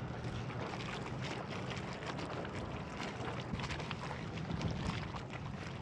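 Water lapping and splashing against a kayak's plastic hull, heard as many small ticks over the rumble of wind on the microphone.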